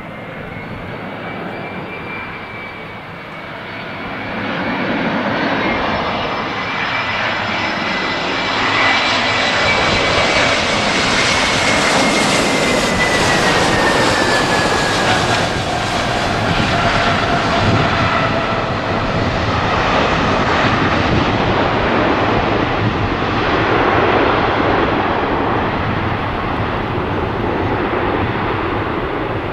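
Airbus A321 jet engines on approach and landing. The engine noise grows over the first few seconds, a high whine falls in pitch near the middle as the airliner passes and touches down, and the noise stays loud through the rollout.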